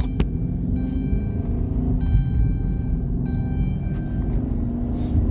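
Dodge Charger's engine running, a steady low rumble heard inside the car. Music plays over it, with faint tones that come and go about every second.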